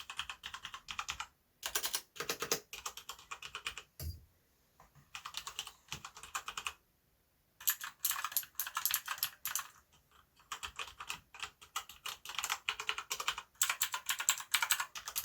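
Typing on mechanical keyboards in runs of rapid key clicks broken by short pauses, comparing tactile Cherry MX Brown switches with clicky Outemu Blue switches.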